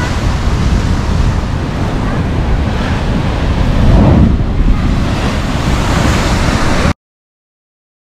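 Pacific surf surging and churning through a narrow rocky chasm, a steady rush of water. About four seconds in it grows louder as a wave forces a jet of spray up through the spouting horn. The sound cuts off abruptly to silence about a second before the end.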